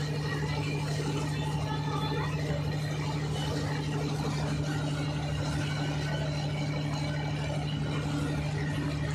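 Fishing boat's inboard engine running steadily under load while towing a broken-down boat, a constant low drone with the wake's splashing hiss over it.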